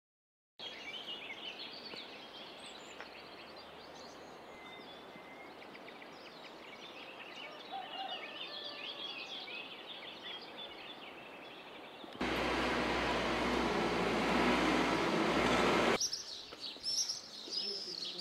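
Songbirds chirping and singing over a faint background hiss. About two-thirds of the way in, a louder, even rushing noise takes over for about four seconds and stops suddenly, then the birdsong returns.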